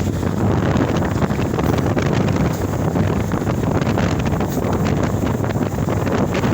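Wind buffeting the microphone: a steady, loud rumble with crackling.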